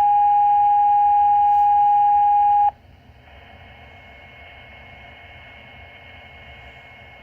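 Fire dispatch two-tone paging alert over a scanner radio: a steady lower tone, stepped down from a brief higher one, held for about three seconds and then cut off. Open-channel radio hiss follows.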